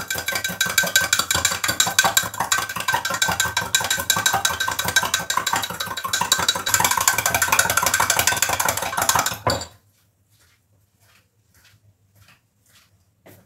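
A spoon stirring sugar into iced water in a glass pitcher: a fast, continuous clinking of spoon and ice cubes against the glass that stops abruptly a little before ten seconds in. Faint footsteps follow.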